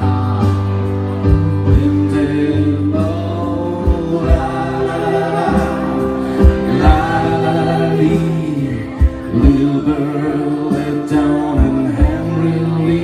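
A song played live on acoustic instruments: singing over the accompaniment, with short low thuds now and then.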